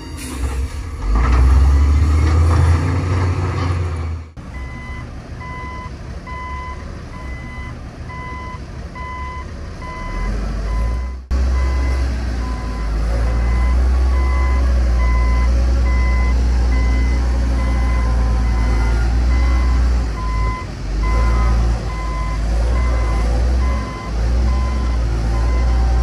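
Heavy diesel earthmoving machine working, its engine running deep and loud. From about four seconds in, a reversing alarm beeps steadily over it, about once a second.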